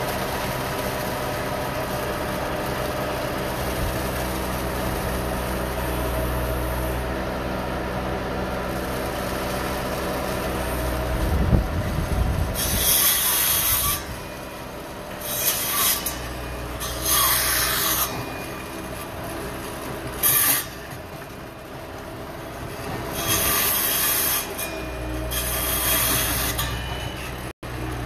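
Bobcat S185 skid-steer loader's diesel engine running steadily as the bucket tips out wet concrete, with one loud noise about eleven seconds in. After that come several harsh scraping sounds a second or two long, a few seconds apart, over the running engine.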